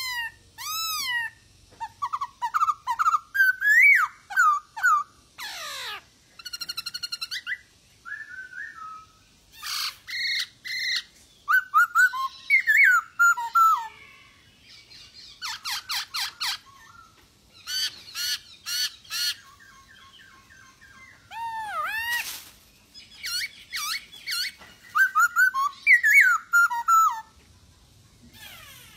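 Male black-throated laughingthrush (poksay hongkong) singing a long, varied song of loud whistled phrases, rising slurs and quick runs of repeated notes, with short pauses between phrases.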